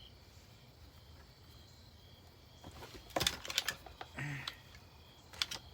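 Sharp clicks and knocks of the broken vacuum cleaner's plastic and metal parts being handled: a quick cluster about three seconds in and a couple more near the end.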